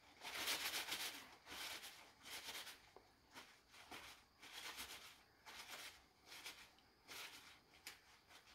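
Faint rustling of kitchen paper sheets being pulled off and handled, loudest in the first second or so, then in short scattered bursts.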